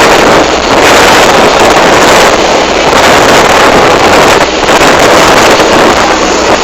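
Wind buffeting a phone's microphone on a moving motorboat, over the boat's engine running steadily. The sound is loud and continuous, with brief dips as the wind eases.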